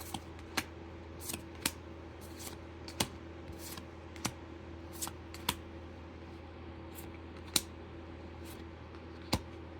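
Pokémon trading cards being flipped through by hand from a freshly opened booster pack: scattered sharp clicks and snaps of card against card, irregularly spaced, over a faint steady hum.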